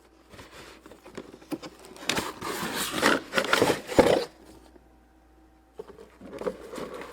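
Toy packaging being opened and handled: cardboard and plastic rustling, scraping and crinkling, loudest around the middle, with a sharp knock about four seconds in and more rustling near the end.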